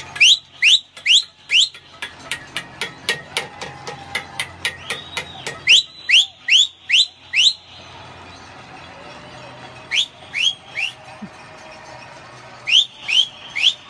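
Shrill whistles, each sweeping upward in pitch, blown in quick sets of three or four. Through the first half they sound over a steady run of sharp claps or bangs, about four a second, which stops around the eighth second.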